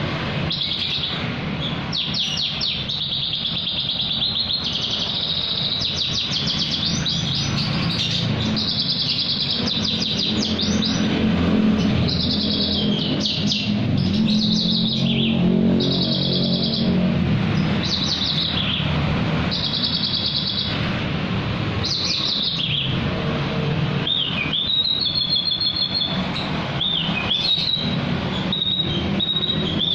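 Branjangan (Javan bush lark) singing a long unbroken song of fast, high trills and short repeated phrases, over a steady low hum.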